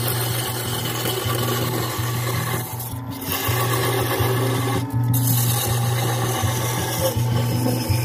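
Parting tool cutting into a spinning piece of wood on a lathe, a steady scraping hiss that lets up briefly twice, about three and five seconds in, as the turned piece is parted off. Background music plays underneath.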